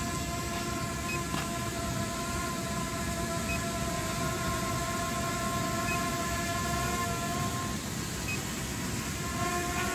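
SJRC F11 4K Pro quadcopter hovering overhead, its brushless motors and propellers giving a steady whine whose pitch shifts slightly near the end. A faint short beep comes about every two and a half seconds, over a steady hiss.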